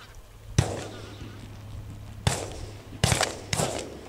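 Four shotgun shots during goose shooting: one about half a second in, then three more in the last two seconds, each with a short echoing tail.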